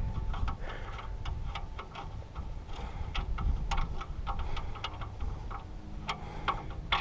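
Light, irregular metallic clicks and ticks as a steel oil-pan drain bolt is turned out by hand, over a low rumble, with one louder knock near the end.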